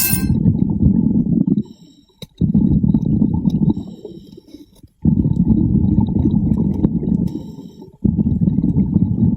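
Scuba diver breathing underwater through a regulator: a low, rumbling gush of exhaust bubbles on each exhale, repeating about every two and a half to three seconds, with short quieter gaps for the inhale between them.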